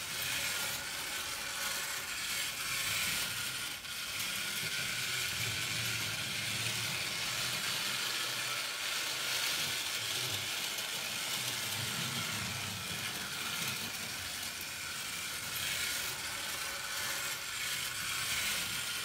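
Märklin H0 model steam locomotive running steadily around the track, pulling three freight wagons: its small electric motor and gears whir while the wheels run on the rails.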